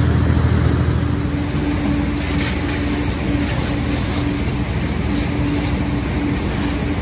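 Steady engine drone from fire apparatus running on the fireground, with the hiss of water from hose streams. The deepest part of the drone eases about a second and a half in.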